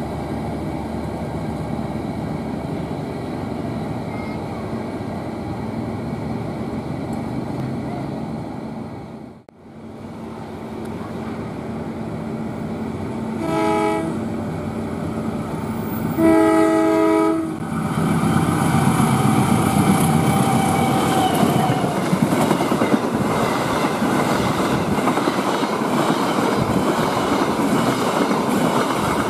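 Passenger coaches rolling past on the rails. After a cut, an approaching diesel locomotive sounds its horn twice, a short blast and then a longer one, and its train passes close at speed with steady wheel noise that grows louder.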